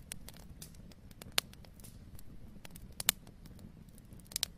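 A wood fire crackling: sparse sharp pops at irregular intervals over a low rumble.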